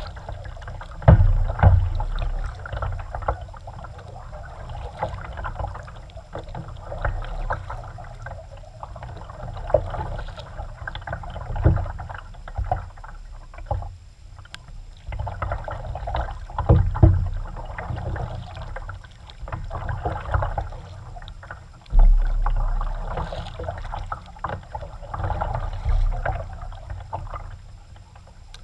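Kayak paddling: paddle strokes swishing and splashing in the water, with irregular low thumps every few seconds.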